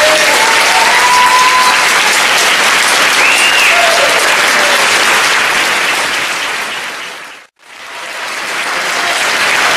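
Audience applauding, loud and sustained, with a voice or two calling out in the first few seconds. The applause fades out and back in about seven and a half seconds in.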